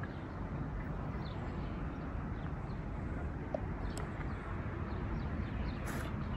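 Outdoor ambience: a steady low rumble with faint, short high chirps scattered through it, a single click about four seconds in and a brief hiss near the end.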